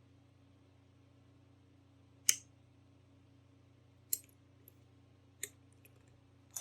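A few short, sharp metallic clicks from a disc detainer pick turning the discs inside a Zarker J45S disc detainer padlock; the first, about two seconds in, is the loudest.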